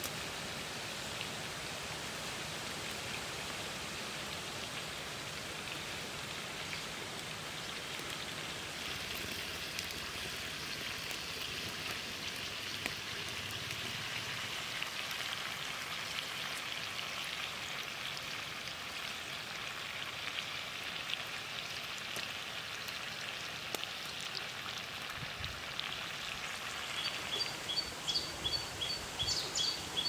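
Chicken pieces with chillies sizzling steadily in a pan over a wood fire. Near the end there is a quick run of short, high chirps.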